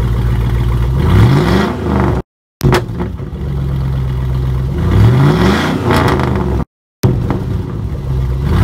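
Straight-piped pickup truck engine idling, then revved three times, each rev a quick rise in pitch, through a freshly fitted axle-dump exhaust pipe that turns down over the rear axle. The sound drops out completely twice, briefly, between the revs.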